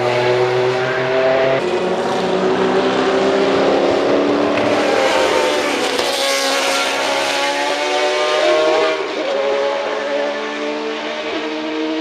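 Group C sports-prototype race car engines at racing speed, several cars driving by in turn, their pitch sliding up and down as they pass.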